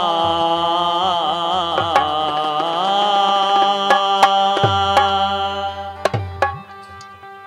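Live Bundeli folk music: a man sings a held, wavering line over a steady harmonium drone while a hand drum strikes a few beats with deep booming tones. The music drops much quieter about six seconds in, leaving the drone sounding softly.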